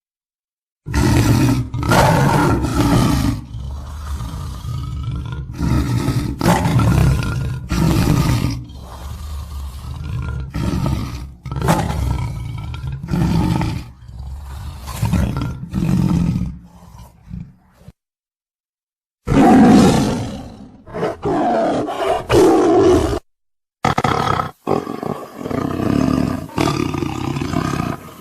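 Tiger roaring and growling: a string of loud, rough roars repeating every second or two, broken twice by short stretches of dead silence.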